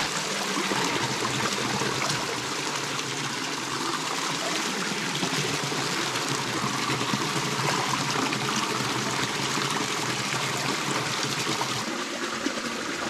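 Stream water running steadily.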